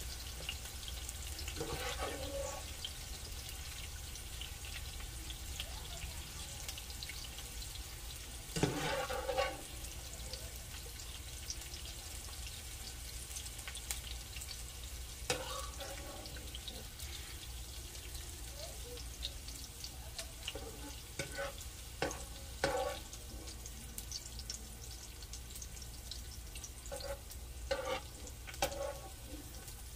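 Hot oil sizzling steadily in a skillet as sautéed onion and bell pepper strips are lifted out with a slotted spoon, with occasional clicks and scrapes of the spoon against the pan.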